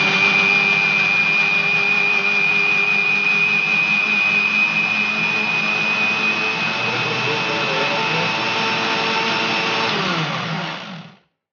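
Electric mixer grinder with a juicer jar running at speed, blending orange segments with sugar and water into juice: a steady motor whine over the churning of the jar. About ten seconds in it is switched off and winds down, its pitch falling as it stops.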